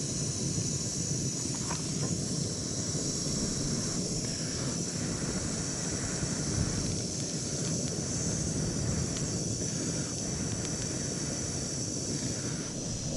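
Steady outdoor background: wind rumbling on the microphone under a constant high insect drone, with a few faint clicks.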